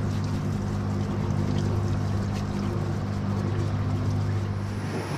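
A motor running with a steady low hum that stops near the end.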